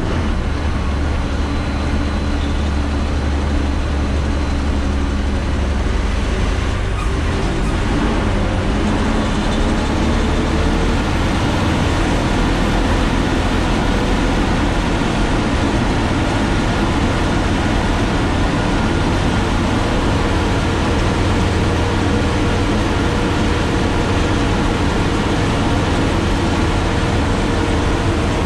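Heavy truck's diesel engine labouring uphill, heard from inside the cab as a loud, steady drone. Its note dips near the start and shifts about seven seconds in as the driver works the gears.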